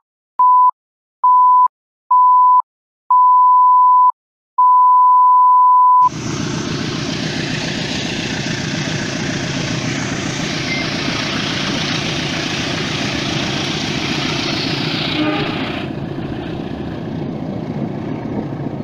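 A single-pitched electronic beep sounded over and over, each beep longer than the last, ending in a long steady tone. About six seconds in it cuts to the steady rumble and rush of a train in motion heard from on board, wheels running on the rails with wind noise, easing slightly near the end.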